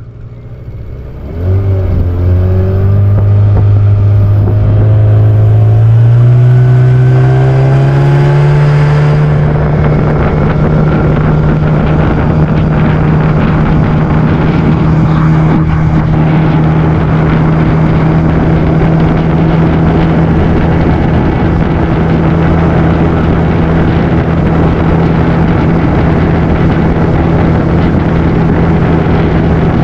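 A small boat's motor coming up to speed about a second and a half in, its pitch rising over the next several seconds, then running steadily under way.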